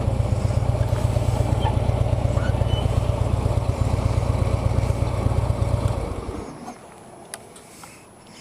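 Harley-Davidson V-twin motorcycle engine idling with a low, pulsing beat, then shut off about six seconds in. A faint single click follows.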